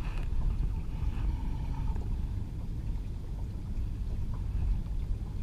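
Small sailing dinghy under way, with wind on the microphone and water washing along the hull as a steady low rush.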